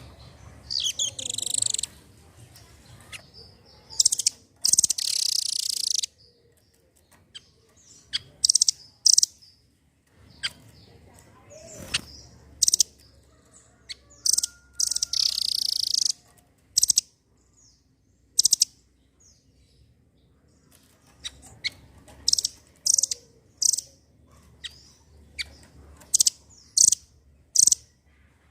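Blue nuthatch (rambatan doraemon) calling: short, sharp, very high chips at irregular intervals, broken by a few longer harsh chattering bursts of one to two seconds.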